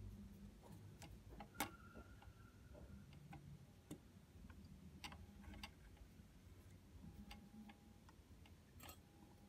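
Near silence broken by faint, irregular small clicks and taps from fingers handling the needle area and thread of a vintage Butterfly domestic sewing machine, with one sharper click about one and a half seconds in.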